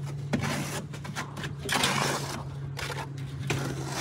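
A steel trowel spreads render across a wall in repeated scraping strokes, with short breaks between them. A steady low hum runs underneath.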